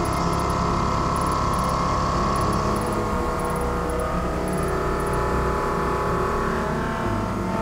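CNC mill cutting titanium with a Kennametal Duo-Lock HARVI III insert end mill, making a steady, high cutting whine under the hiss of flood coolant spray. The whine eases slightly about three seconds in.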